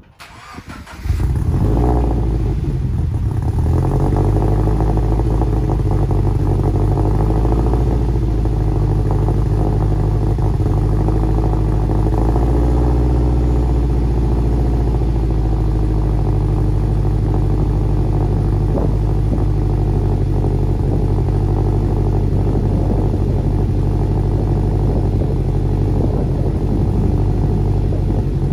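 Turbocharged Toyota GT86 flat-four engine starting about a second in through a new 3-inch MAPerformance exhaust. It wavers briefly as it catches, then settles into a steady idle.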